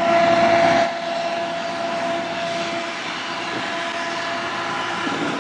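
Steady drone of two distant CN diesel locomotives hauling a freight train slowly under heavy load, with a louder rush of noise in the first second. The locomotives are labouring to pull the train out of the tunnel.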